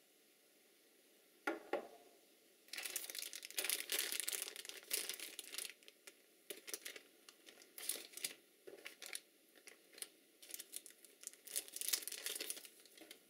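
Clear polyethylene packaging bags crinkling and rustling in irregular bursts as the packed accessories are handled, with two quick knocks about a second and a half in.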